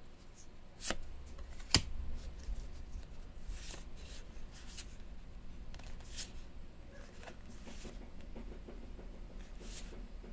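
Magic: The Gathering cards from a freshly opened booster pack being handled and slid past one another, with soft swishes now and then and two sharp clicks about one and two seconds in.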